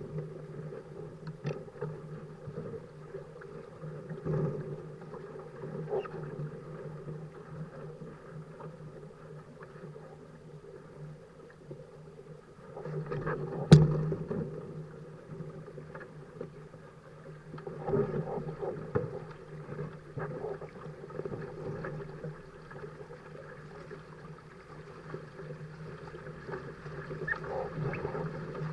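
Dart 15 Sting catamaran under sail: water rushing past the hulls with a steady low hum and scattered knocks, one sharp knock about 14 seconds in.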